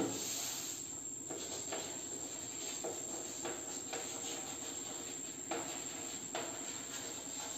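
Chalk writing on a chalkboard: faint, irregular taps and scratches of the chalk strokes over a steady low hiss.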